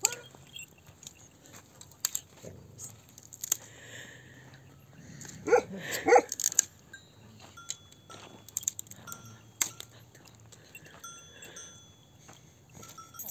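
Intermittent light clinks and short ringing tones, like small bells, with two short animal calls about halfway through.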